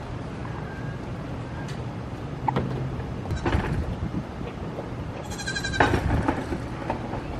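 A goat bleats once, a short loud call about five seconds in. A few knocks come before it, and a low steady hum runs underneath.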